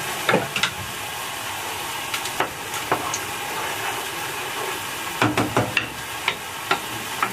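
Food sizzling steadily in a pan, with a wooden spoon stirring noodles and knocking against the pan now and then, several knocks close together about five seconds in.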